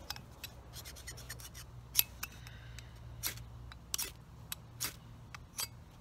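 A ferrocerium fire-starter rod scraped against a metal edge in a series of short, sharp strikes, the loudest about two seconds in; each stroke is a spark-throwing strike.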